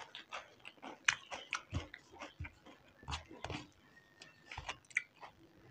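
Close eating sounds of people eating instant noodles with their hands: chewing, lip smacks and slurps in short, irregular snaps, with fingers working the noodles on steel plates.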